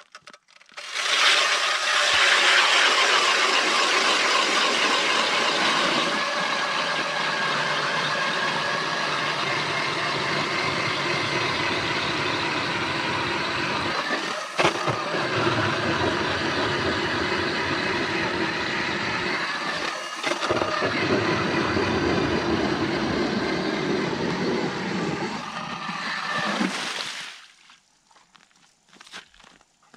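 Power ice auger drilling a hole through lake ice, its motor running steadily under load. The sound dips briefly twice, then winds down and stops near the end.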